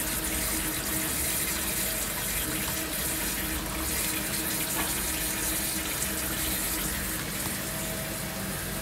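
Dielectric water flushing from the wire guide of a Charmilles Robofil 440 CC wire EDM machine, spraying and splashing steadily into the work tank while the machine runs, with a faint steady hum underneath.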